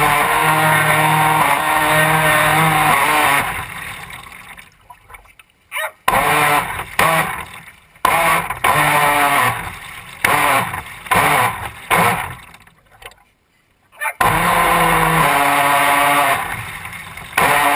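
Radio-controlled boat's motor running in bursts of throttle: a steady pitched whine for a few seconds, then a series of short runs and stops, then another long run near the end.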